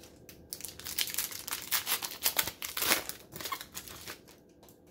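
Foil wrapper of a 2020 Donruss baseball card pack crinkling as it is torn open and handled, loudest about three seconds in.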